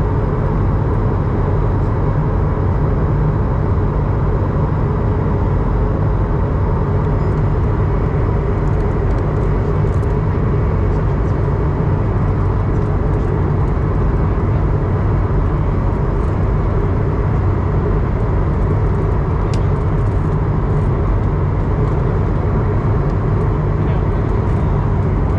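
Steady cabin noise of an Airbus A220-100 in flight: the drone of its Pratt & Whitney PW1500G geared turbofans mixed with airflow rush, holding an even level throughout, with a few faint steady tones in it.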